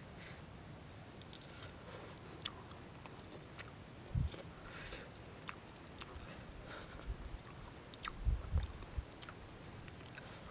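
A person chewing grilled fish close to the microphone, with scattered small mouth clicks. A few low thumps come about four seconds in and again a little after eight seconds.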